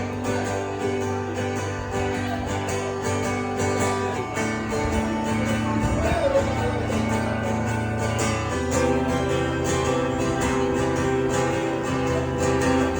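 Live country music: an instrumental break carried by strummed guitar, playing on steadily between sung lines.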